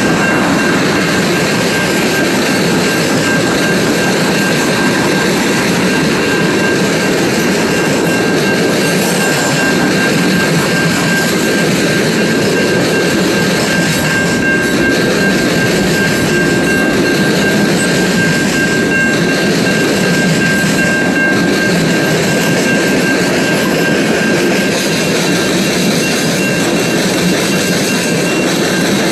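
Freight train of tank cars and centerbeam lumber flatcars rolling past close by: a loud, steady rumble and rattle of wheels on the rails, with a steady high-pitched ring held over it.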